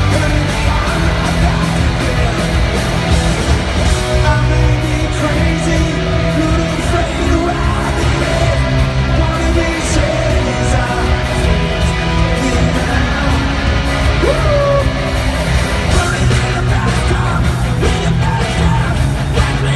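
Rock band playing live with electric guitars and drums, loud and continuous, recorded through a phone's microphone from the audience.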